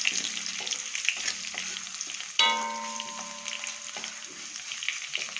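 Green chillies, dried red chillies, curry leaves, mustard seeds and fenugreek sizzling and crackling in hot coconut oil in a wok as a tempering, being stirred. About two and a half seconds in, a sharp metallic clang rings on for over a second.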